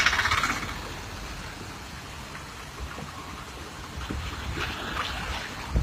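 Steady rush of water noise, with a louder burst at the very start and a few smaller surges about four to five and a half seconds in.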